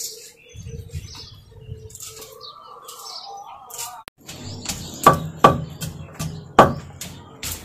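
Birds chirping faintly, then from about four seconds in a wooden pestle pounding green chillies, garlic and ginger in a clay bowl: a few loud, sharp knocks at irregular spacing.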